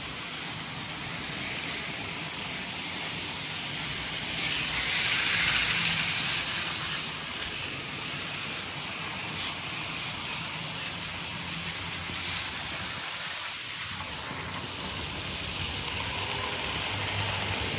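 Model train running on its track: a steady rolling hiss of wheels on rails, louder for a couple of seconds about five seconds in.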